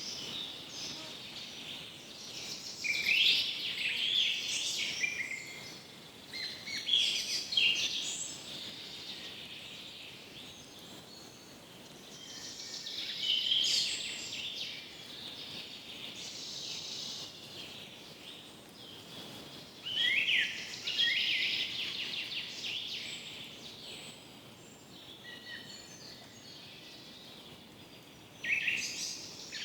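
Forest birds singing: short phrases of high chirps and trills that come every few seconds, over a faint steady hiss of background ambience.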